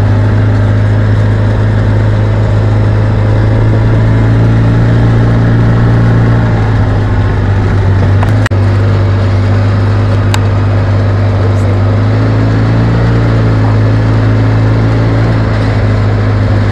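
Engine of a side-by-side off-road vehicle running steadily under way on a rough dirt track, its hum rising and falling slightly in pitch, with a sharp knock from the vehicle jolting about halfway through.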